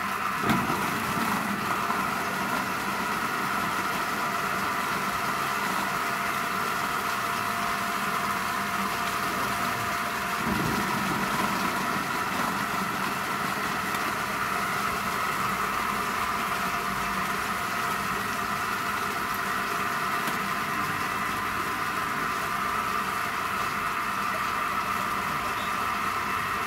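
Household vegetable chopper's 400-watt electric motor running steadily while it chops eggplant. The din briefly grows louder about half a second in and again about ten seconds in as pieces go through the blades.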